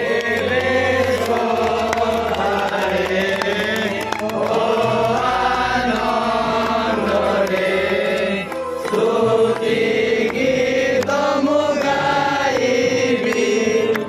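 Music: a song with singing voices over a low, steady bass line.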